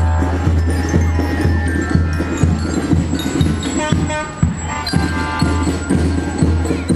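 Music with a steady beat, about two beats a second, over a deep bass line.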